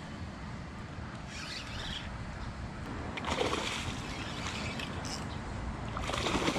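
Wind rumbling on the microphone, with water splashing in short bursts about a second in, about three seconds in and near the end.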